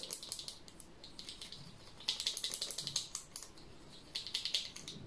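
Thin applicator stick stirring eyebrow tint in a small clear mixing cup: quick runs of light clicks and scrapes of the stick against the cup, louder from about two seconds in and again about four seconds in.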